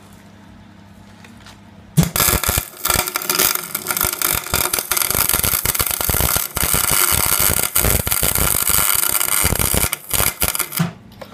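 MIG welder arc crackling as the spider gears inside an open differential are welded together to lock it. The arc strikes about two seconds in, runs with a few short breaks, and stops shortly before the end; before it there is only a low steady hum.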